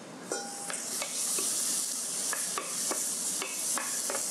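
Diced zucchini, red onion and raisins sizzling steadily in a hot stainless steel pan. A wooden spatula stirs them, knocking against the pan again and again.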